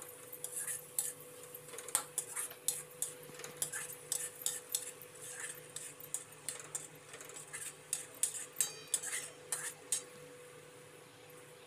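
Metal slotted spoon scraping and clinking against a metal kadhai while a thick masala is stirred, in quick irregular strokes that stop about ten seconds in.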